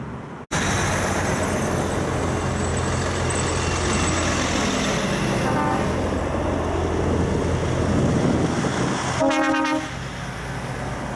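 A convoy of heavy semi-trucks driving past with their diesel engines running loudly. A faint short toot comes about five and a half seconds in, and near the end a truck horn blasts for about half a second.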